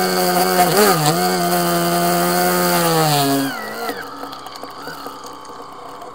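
Small inflatable boat's outboard motor running at steady revs, dipping briefly about a second in, then throttled back about three and a half seconds in, its pitch and loudness dropping to a quieter run.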